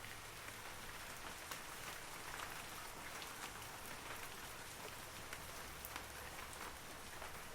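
Steady rain falling on forest trees, an even hiss with many individual drops ticking sharply throughout.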